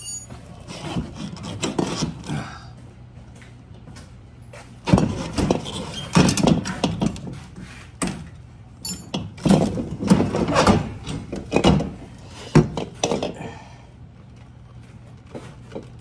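Metal clunks, scrapes and knocks as a refrigerator compressor is worked free of its mounts and pulled out of the compressor compartment. The sounds come in irregular bursts, busiest from about five seconds in until near the end, over a steady low hum.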